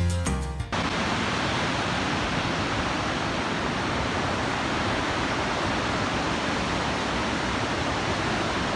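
Background music cuts off under a second in, leaving the steady rushing of river water.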